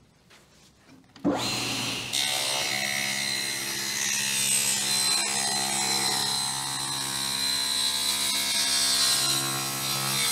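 SawStop table saw starting up about a second in, then cutting a board of rock maple with a dull, pitch-gummed blade: a steady motor hum under the cutting noise. The cut drops away right at the end as the board clears the blade. The blunt blade is burning the maple.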